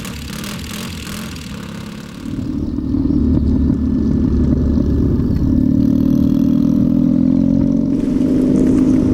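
Motorcycle engine running, growing louder about two seconds in, then holding a steady drone.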